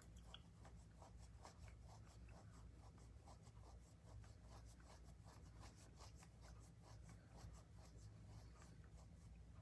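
Near silence: room tone with a low steady hum and faint light ticks and scratches, several a second.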